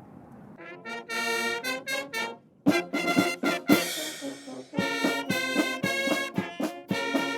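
Brass music with sharp percussive hits on the beat, starting about a second in after a brief faint background hiss.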